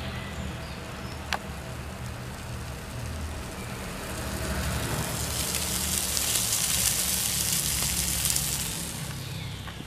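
Hamburger patties sizzling in an enamel tray heated by a parabolic trough solar mirror. The hiss swells from about the middle and fades near the end, over a steady low rumble.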